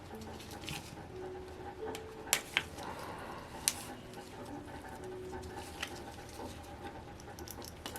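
Ultrasonic parts cleaner heating up, giving a soft gurgling, bubbling sound over a steady hum. A few sharp clicks come in the first half, from about two seconds in.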